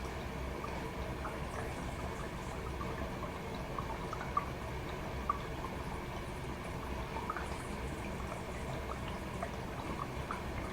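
Toshiba AW-42SEE4 fully automatic washing machine with water pouring and dripping in the tub: a steady watery noise over a low hum, with scattered small drips and two short clicks around the middle.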